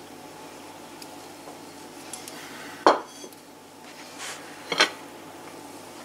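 Kitchen dishes clinking: two sharp knocks of a plate against dishes or the baking tray, about two seconds apart, each with a lighter tap just before it.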